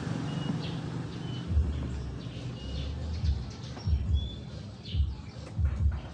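Small birds chirping in short high notes, over a low rumble broken by several dull thumps.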